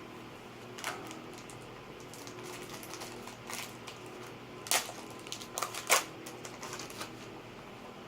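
Trading cards and their packaging being handled: a scatter of sharp clicks and crackles, the loudest two close together about five and six seconds in, over a steady low hum.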